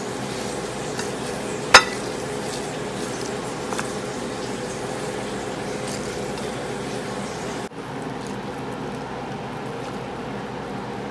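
Dishes clinking while food is plated, with one sharp clink about two seconds in and a few faint ticks, over a steady background hum.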